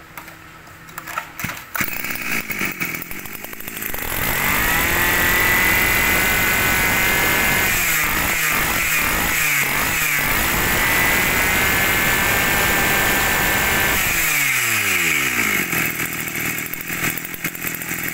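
Tanaka 23cc two-stroke brush cutter engine starting up about two seconds in, then revved hard, with several quick throttle blips and a long high-rev run. Its pitch falls back toward idle about three quarters of the way through, and it runs on there.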